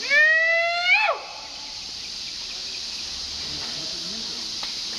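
A long-tailed macaque gives one loud call about a second long, rising slowly and then sweeping sharply up and down before it cuts off. A steady high hiss of forest insects runs underneath.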